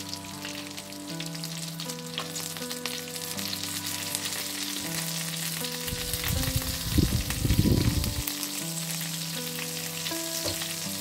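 Chicken and cherry-tomato skewers frying in hot oil in a pan: a steady sizzle with fine crackles. About six seconds in, a louder low rustle and bump lasts roughly two seconds as a gloved hand lifts a skewer. Soft background music with held notes runs underneath.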